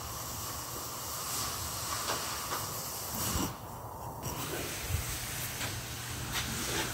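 Steady background hiss with a low hum, broken a few times by light knocks and clicks as the heavy motor housing is handled against the lathe chuck.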